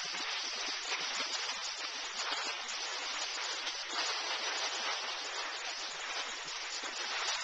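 Skis sliding over soft, slushy spring snow, a steady grainy hiss.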